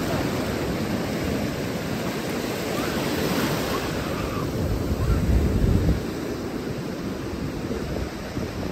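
Ocean surf washing onto the beach, with wind buffeting the microphone; the rush swells to its loudest about five seconds in, then eases.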